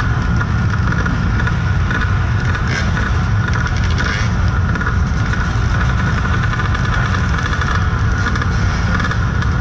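Kawasaki KDX220 two-stroke single-cylinder dirt bike engine running steadily at low revs. Other dirt bike engines are running close by.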